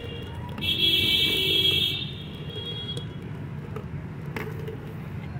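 A loud, high-pitched horn blare lasting just over a second, starting about a second in, over a steady background hum.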